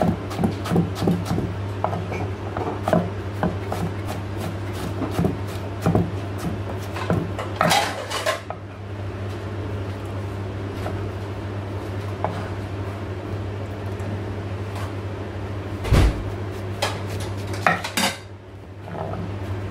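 Kitchen knife slicing a red onion on a wooden chopping board: a run of quick, uneven knife taps on the board, with a longer rustling burst about eight seconds in and a loud thump near the end, over a steady low hum.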